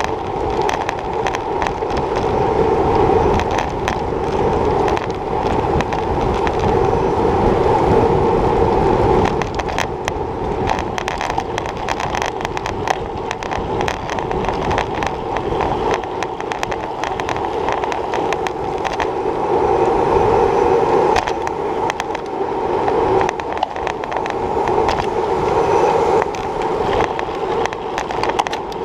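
Road bike ridden at race speed, heard from a handlebar-mounted camera: a steady hum of tyres and wind on the pavement that swells in stretches, with many small rattles and clicks as the bike and mount go over bumps.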